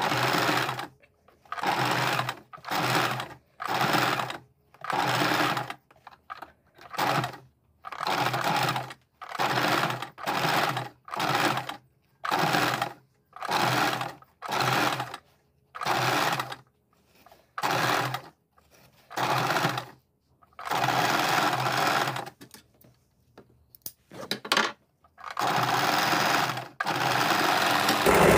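Electric sewing machine stitching lace trim onto fabric in short stop-start bursts, about one a second, then in two longer runs of a few seconds near the end.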